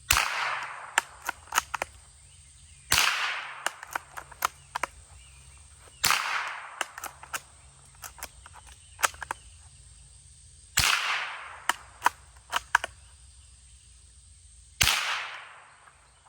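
Rossi .22 LR bolt-action rifle firing 40-grain rounds: five single shots a few seconds apart, each followed by a rolling echo that dies away over about a second. Between shots come short sharp clicks of the bolt being worked.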